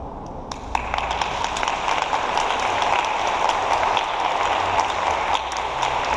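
Audience applauding, beginning about half a second in and holding steady.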